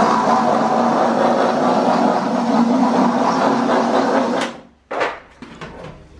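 Cordless drill running steadily at speed as it bores through a fiberglass widebody fender to widen a mounting hole. It stops about four and a half seconds in, and a brief burst of sound follows.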